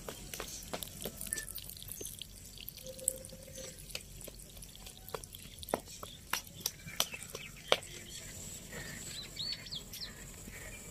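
Water dripping and trickling from a tilted plastic bucket as washed rice is drained by hand, in scattered sharp drips. A few bird chirps near the end.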